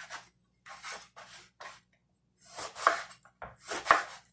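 Kitchen knife cutting through an eggplant on a wooden cutting board: a series of short cutting strokes, with two sharp knocks of the blade on the board near the end.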